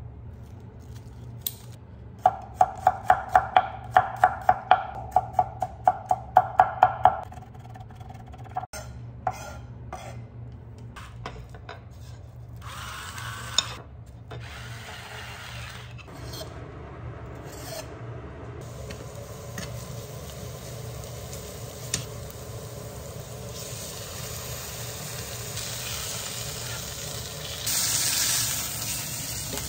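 A quick run of about sixteen sharp, ringing clicks, a few a second, starting a couple of seconds in and lasting about five seconds, then scattered handling knocks and a short grinding noise as pepper is ground. Near the end the beef goes into a hot frying pan of oil and garlic and starts to sizzle.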